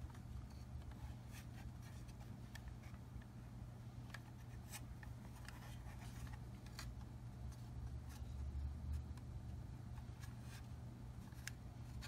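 Faint handling noise of hands turning a plastic blower housing, with light scattered clicks and rubs over a steady low hum.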